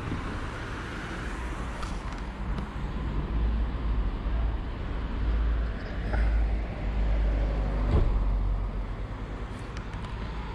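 Road traffic on a town street: cars passing, with a low rumble that swells in the middle.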